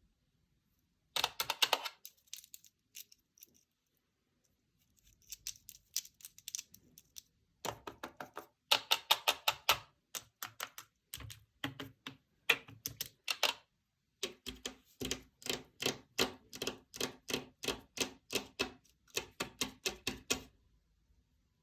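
Paper fidget board being played with: runs of quick, crisp paper clicks and taps, several a second, in bursts with short pauses between them.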